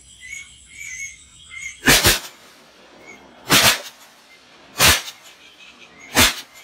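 Shotgun shots at flying ducks: a quick double about two seconds in, then three single shots roughly every second and a half. Faint high chirps come before the first shot.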